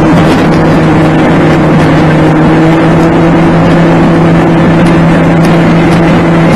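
Car engine humming at a steady pitch over road and tyre noise, heard from inside the cabin on a dashcam, with the recording sped up to double speed.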